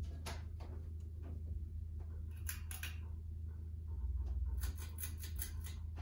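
Emerson Premium ceiling fan coasting down after being switched off, a steady low hum of the spinning fan, broken by two short bursts of rapid clicking about two and a half seconds in and again near the five-second mark.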